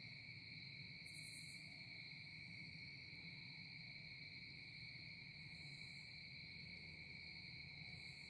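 Faint, constant high-pitched insect buzzing, one steady unbroken tone. Now and then a fainter, higher buzz joins briefly.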